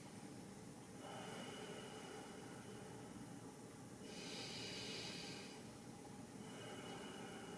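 A person's slow, deep breaths, drawn in and let out over several seconds each, with the air hissing audibly. There are about two breaths, and the loudest, breathiest part comes a little past the middle.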